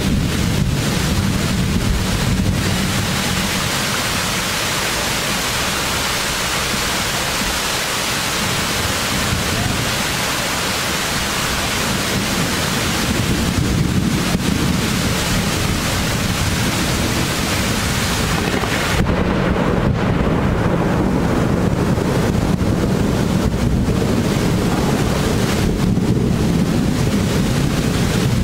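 Thunderstorm downpour and gusting wind: a loud, steady rush of rain noise with wind rumbling on the microphone. The high hiss eases about two-thirds of the way through while the low rumble goes on.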